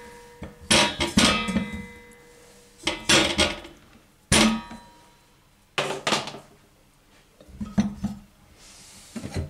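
Whole raw potatoes dropped one by one into an empty granite-coated metal pot: a string of separate knocks, several followed by the pot's brief ringing.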